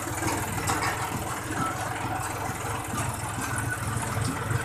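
John Deere tractor's diesel engine running steadily while the tractor is driven along a dirt track, with an even, low pulsing engine note.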